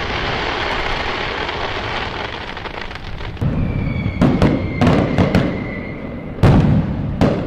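Fireworks: a dense, even hiss for the first three seconds or so, then a string of sharp bangs from about three and a half seconds in, with a steady whistle sounding over the middle bangs.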